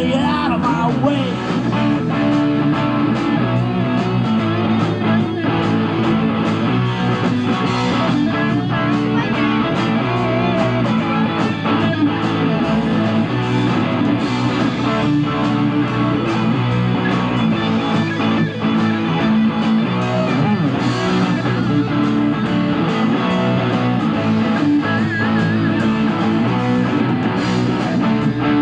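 Rock band playing live: electric guitars over bass and drums, an instrumental stretch with no singing.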